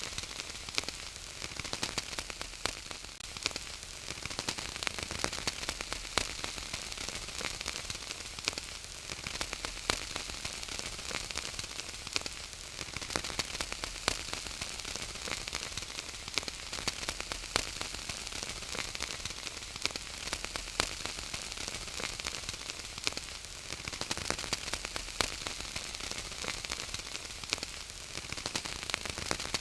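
Wood fire in a fireplace crackling: a steady hiss with frequent sharp pops and snaps.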